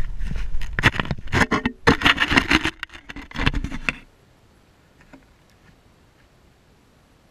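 Handling noise of a camera resting on infield dirt: dense scraping and crackling with low rumbling thumps as it is shifted, cutting off suddenly about four seconds in and leaving only a faint background hiss.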